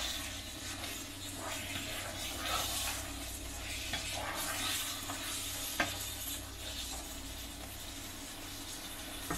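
Thick green chili chicken curry simmering and sizzling in a nonstick pan while a wooden spatula stirs it. There is one sharp tap of the spatula a little under six seconds in.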